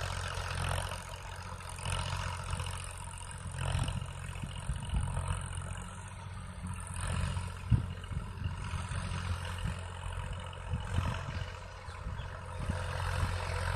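Massey Ferguson 241 DI tractor's three-cylinder diesel engine running steadily under load, pulling a disc harrow. A single short, sharp knock about eight seconds in.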